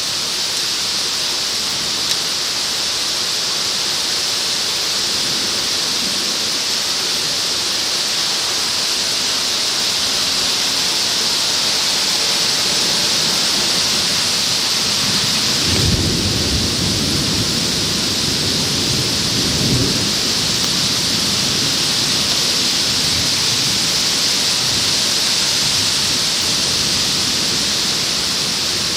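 Torrential downburst rain, a dense steady hiss heard through a plastic bag wrapped over the camera. About halfway through, a low rumble of thunder swells and lasts about four seconds.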